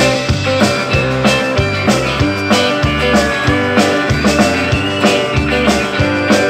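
Live rock band playing: acoustic and electric guitars over a drum kit keeping a steady beat, about three strokes a second.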